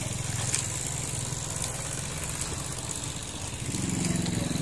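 A small engine running steadily at idle, its note shifting up to a higher pitch a little before the end.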